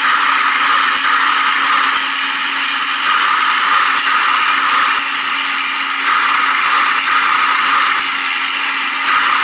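Small electric motor of a DIY miniature construction machine whirring steadily, with a low steady hum under a higher whine.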